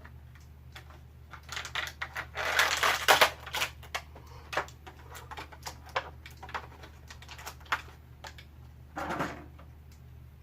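Plastic action-figure parts being handled and snapped together, a run of irregular small clicks and taps, with a louder rustling burst about two and a half seconds in and another near the end, over a steady low hum.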